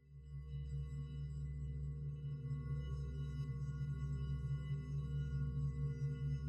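Background music: a slow ambient drone of held, ringing tones over a low pulsing hum, swelling back in after a brief dip at the start.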